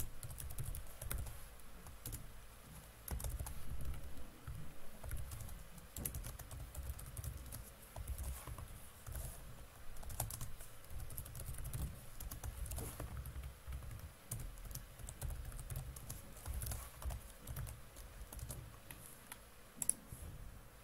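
Typing on a computer keyboard: irregular runs of key clicks, with a low rumble underneath.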